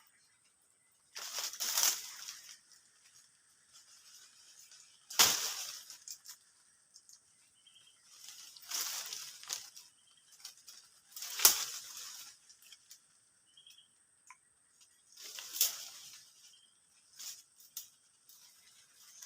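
Water splashing five times, a few seconds apart, each splash lasting about a second.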